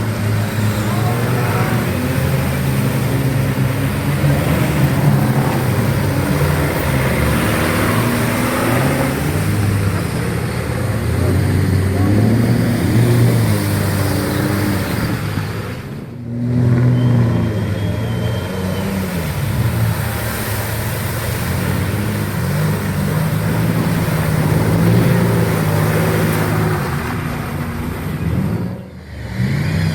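Off-road 4x4 engines running and revving, rising and falling in pitch, with voices in the background.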